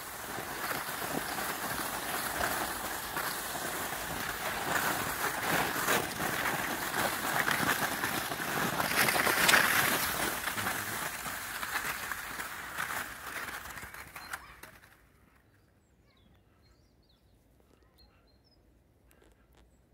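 Skis scraping and hissing as they slide over packed snow and slush on a pavement, growing louder about nine seconds in, then stopping about fifteen seconds in as the skier comes to a halt.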